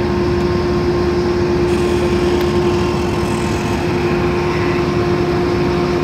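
Steady loud mechanical drone with a constant hum, from machinery running on an airport apron beside a parked turboprop airliner.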